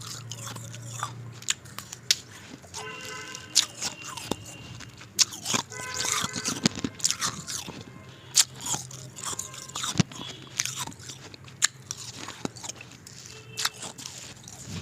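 Ice being bitten and chewed close to the microphone: a run of sharp, irregular crunches and cracks.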